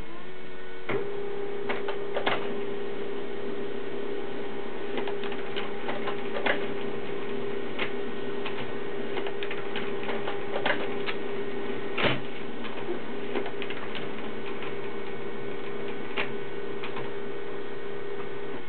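Desktop printer running: a steady hum that starts about a second in, with scattered sharp clicks and ticks, the loudest about twelve seconds in.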